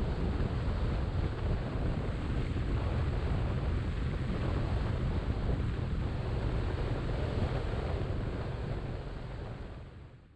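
Heavy wind buffeting on the microphone of a moving motorcycle, a steady low rumble of rushing air that fades out near the end.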